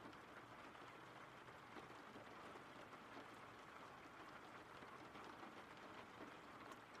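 Faint, steady rain: an even hiss of rainfall with light, scattered drop patter.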